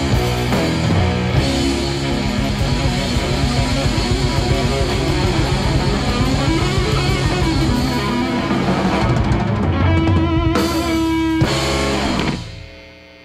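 Guitar-driven rock music that stops abruptly about a second before the end.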